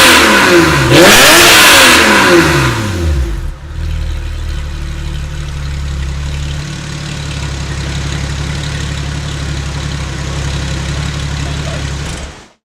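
Porsche 996 flat-six with an iPE performance exhaust, blipped loudly: revs fall, rise again about a second in, drop back and settle to a steady idle. The sound cuts off suddenly near the end.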